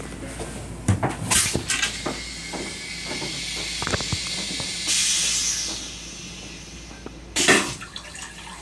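Stainless-steel train toilet flushing: a few knocks from the mechanism, a hiss of rinse water about five seconds in, then a short loud whoosh about seven and a half seconds in as the bowl empties.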